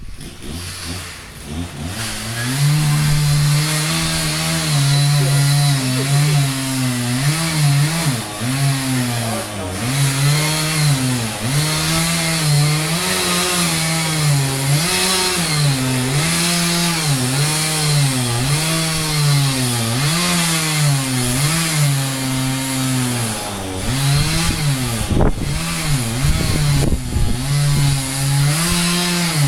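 Two-stroke chainsaw running while cutting wood, its engine pitch rising and falling over and over as the throttle is worked. It comes up to speed about two seconds in and drops briefly near the end.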